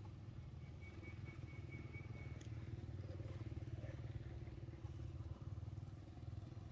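A motor engine running steadily, heard as a faint low hum.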